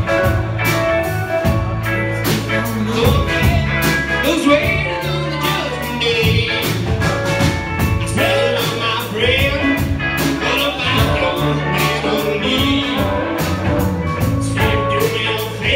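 Live rock band playing a song with electric guitars, drums and keyboard, and a voice singing over them.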